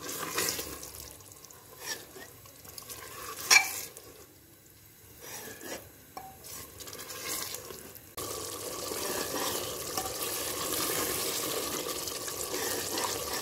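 A metal ladle stirring and scraping minced meat and liver in an aluminium pressure cooker, with light clinks and one louder knock about three and a half seconds in. At about eight seconds a steady sizzle of the masala frying over high heat comes in suddenly.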